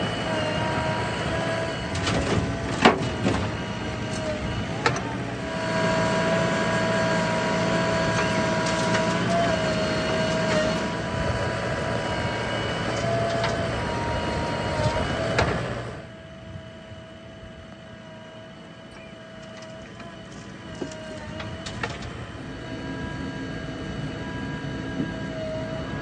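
JCB 3DX backhoe loader and tractor diesel engines running, with a steady high whine from the backhoe's hydraulics and a couple of sharp clicks in the first few seconds. About two-thirds through, the sound drops to a quieter level and the whine carries on.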